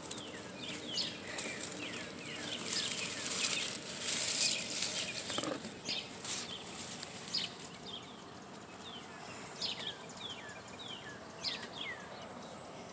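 Grass and vegetation rustling in bursts for the first several seconds, with short, high, downward-sweeping bird chirps repeating throughout.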